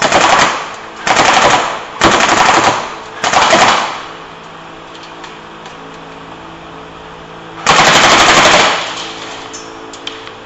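G36-pattern rifle firing short full-auto bursts: four quick bursts close together, then after a pause of a few seconds one longer burst. A low steady hum fills the gap between them.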